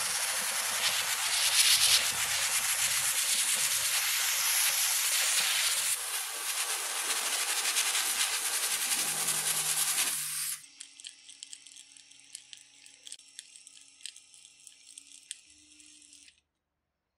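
Sandblasting gun blasting abrasive onto rusty toy-pistol parts: a loud steady hiss that cuts off suddenly about ten seconds in. A faint hum with light clicks follows until near the end.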